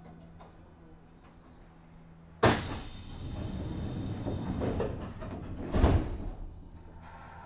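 Passenger doors of a Nagoya Municipal Subway 3050 series car sliding shut at a station stop. Over a steady low hum from the standing train, the doors start closing suddenly about two and a half seconds in and close with a thud near six seconds.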